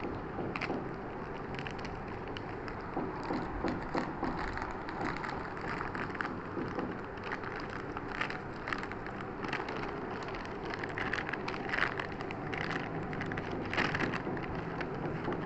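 Hard disk being unpacked by hand: irregular crinkling and crackling of its packaging, with small clicks and rustles over a steady background hiss.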